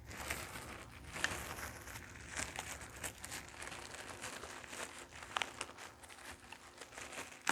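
Packaging crinkling and rustling as the vacuum's charger is unwrapped and handled, with scattered light clicks and a sharper click at the very end.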